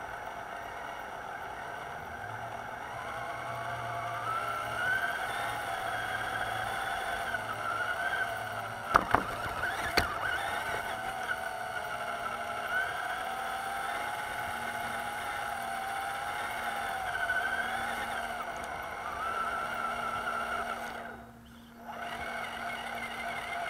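Electric RC rock-crawler truck driving, its motor and gear train whining, the pitch rising and falling with the throttle, as heard from a camera mounted on the truck. Two sharp knocks come about nine and ten seconds in. Near the end the whine stops for about a second, then starts again.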